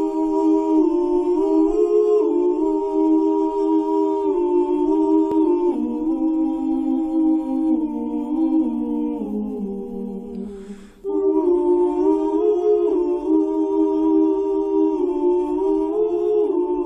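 Slow vocal music of held, sung notes in harmony, moving in steps. The line sinks lower, breaks off briefly with a soft hiss about ten seconds in, then resumes at the earlier pitch.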